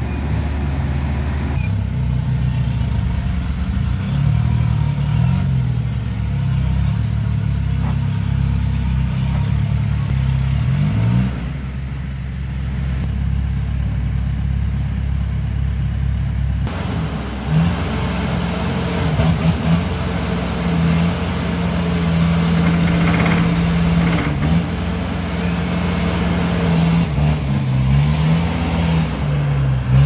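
Pistachio harvester's engine running close by, its pitch rising and falling as it revs. A little past halfway it settles into a steadier, higher note for several seconds, then wavers again near the end.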